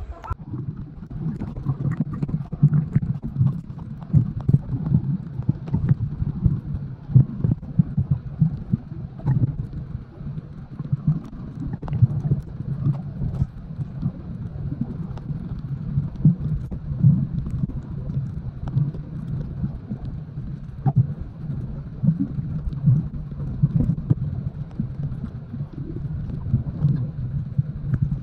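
Muffled underwater sound from a camera held below the surface while snorkeling: a continuous low rumble that swells and pulses irregularly, with scattered soft clicks and knocks.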